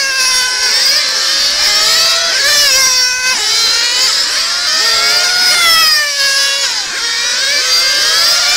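Several 1:8 nitro on-road RC cars, among them a Serpent 960, racing: their small glow engines make a high whine that rises and falls as they rev through the corners, with several engines overlapping.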